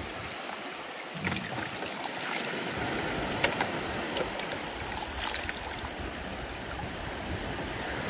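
Shallow sea water washing in over the sand at the shoreline: a steady rush of small waves, with a few faint clicks.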